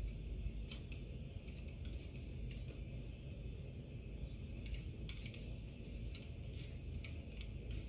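Scattered light clicks and clinks of gun-cleaning tools being handled: a cleaning rod, a patch on its tip and a bottle, as dry patches are readied for a pistol barrel. A steady low hum runs underneath.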